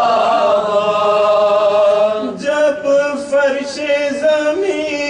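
Man chanting a marsia, an Urdu elegy for the martyrs of Karbala. He holds one long note, then about two seconds in moves into a new phrase with a wavering, stepping melody.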